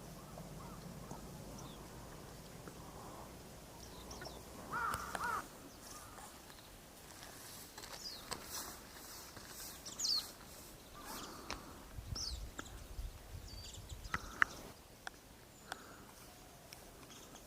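Japanese white-eyes giving short, high call notes at intervals, with one louder, lower bird call about five seconds in and a few sharp ticks later on.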